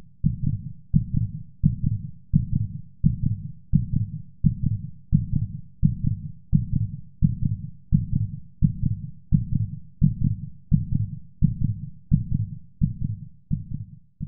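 Heartbeat sound effect: regular low, deep thumps, a little under two a second, each dying away quickly.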